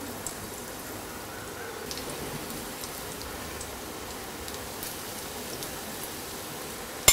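Onion pakoras deep-frying in hot oil: a steady sizzle with scattered small crackles from the bubbling oil, and one sharp tap right at the end.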